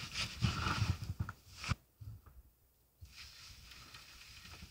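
A few soft knocks and clicks, one sharper click just under two seconds in, then a faint steady hiss.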